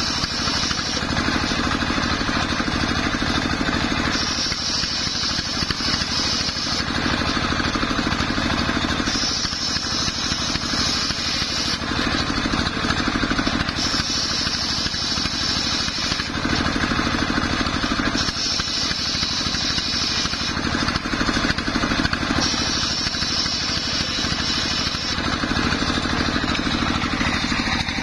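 Homemade belt-driven circular saw bench ripping waru (sea hibiscus) planks. The blade bites into the wood for about two and a half seconds roughly every four to five seconds, about six cuts, over the steady running of the engine that drives it.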